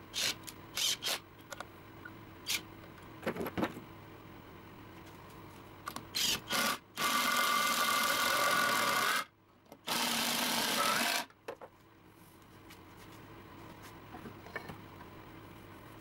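Cordless impact driver driving screws into an oak table frame: several short bursts, then two longer runs of about two seconds each with a steady motor whine, ending about eleven seconds in.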